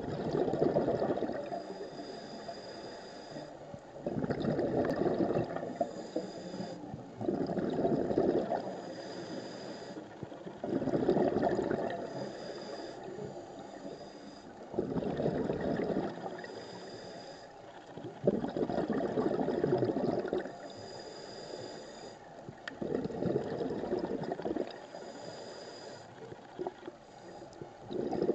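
Scuba breathing through a regulator, heard underwater: a loud burst of exhaled bubbles about every three and a half to four seconds, eight in all, with a thinner, higher hiss from the demand valve on each inhale in between.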